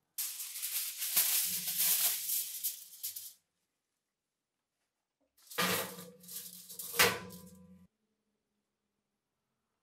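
Aluminium foil crinkling and rustling as it is spread over the oven floor, then a cast iron Wagner skillet set down on the foil with a single knock about seven seconds in.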